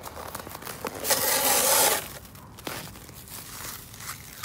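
Small clicks and knocks of toys being handled, with a loud hissing, rustling burst about a second long starting about a second in.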